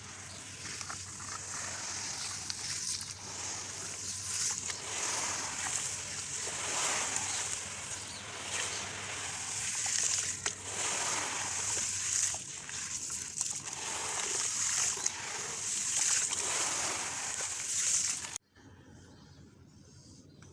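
Gritty reused cement with concrete stones being crumbled in water: continuous wet crunching, grinding and splashing, which stops abruptly near the end.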